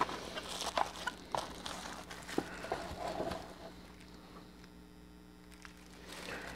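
Plastic accessory bags and cardboard packaging being handled: a few short crinkles and taps in the first half, then only a faint steady hum.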